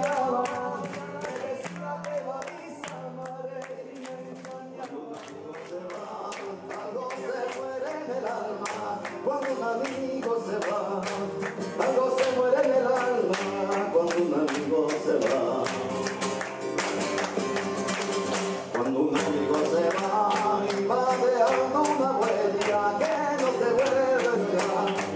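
Live flamenco: a man sings a wavering line into a microphone over a steady run of sharp handclaps (palmas). It gets louder about halfway through.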